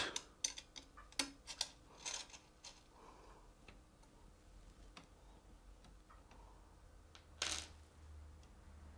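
Faint clicks and taps of parts being handled on a 3D printer's top frame during assembly: several in the first three seconds, then scattered light ticks and one short rustle near the end.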